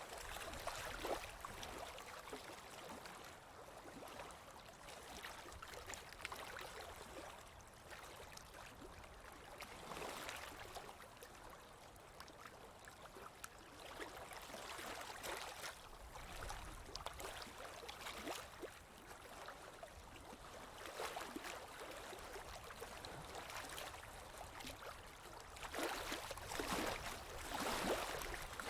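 Natural water flowing and splashing, swelling and easing in loudness every few seconds, loudest near the end.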